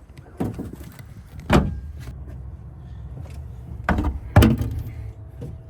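Several dull knocks and clunks of heavy old chainsaws being handled and set down, the loudest about a second and a half in and two more in quick succession about four seconds in, over a low background rumble.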